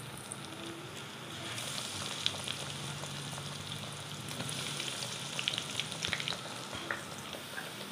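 Breadcrumb-coated bread rounds frying in hot oil in a wok: a steady sizzle that gets louder about a second and a half in as more pieces go into the oil, with spitting crackles around five to six seconds in.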